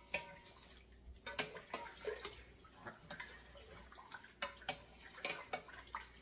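A spoon stirring vinegar brine in a pot, clicking against the sides again and again amid faint sloshing of liquid.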